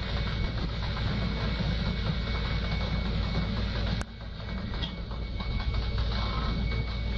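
Fishing boat's engine and hoisting gear running steadily, a dense mechanical drone as the loaded net is lifted aboard; the level drops briefly about four seconds in, then recovers.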